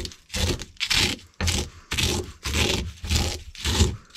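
Pestle grinding dried eggshells in a mortar: repeated scraping, crunching strokes, about two a second.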